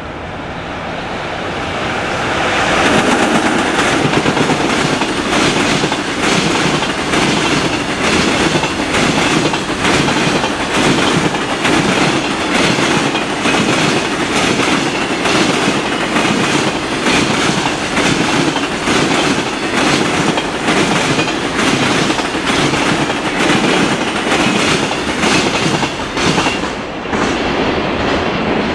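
Freight train hauled by a JR Freight EF66 electric locomotive passing close by. It grows louder over the first few seconds as the locomotive arrives, then the wagons' wheels clatter steadily over the rail joints as the long train of container and flat wagons rolls past.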